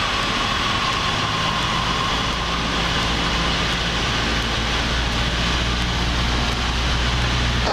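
Cessna 172P's four-cylinder Lycoming engine and propeller running steadily on final approach, heard inside the cabin with the rush of airflow; the drone and hum hold an even level throughout.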